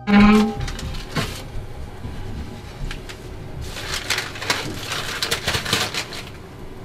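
A loose panel being handled and scraped against a wall and floor: a short loud knock at the start, a few clicks, then a stretch of scraping and rattling that dies away near the end.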